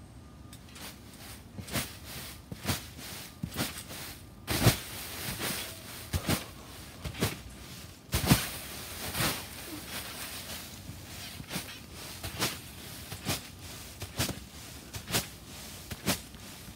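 Someone bouncing on a trampoline covered in dry leaves: a thump from the mat about once a second, with leaves rustling and crunching. Two landings about a quarter and half of the way through are louder and trail off into longer rustling.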